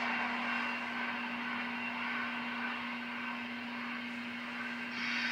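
Standing steam locomotive No. 40 giving off a steady hiss over a constant low hum. The hiss grows louder and brighter about five seconds in.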